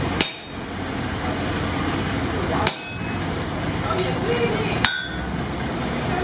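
Sledgehammer blows on a hot punch driving the eye hole through a forged axe head. There are three sharp strikes about two and a half seconds apart, each with a short metallic ring.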